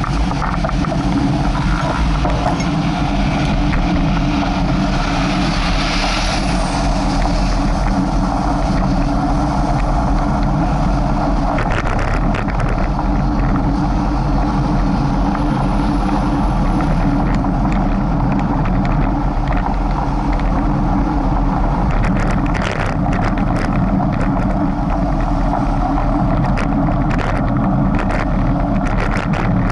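A motor vehicle running steadily: a continuous low engine hum with road noise, and scattered light clicks and knocks in the second half.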